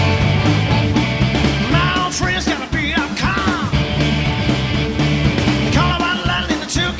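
Rock and roll band music, with a sung vocal line coming in about two seconds in and again near the end.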